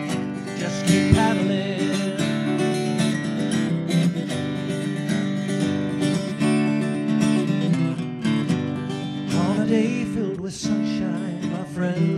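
Steel-string acoustic guitar strummed steadily, playing an instrumental passage of a folk song.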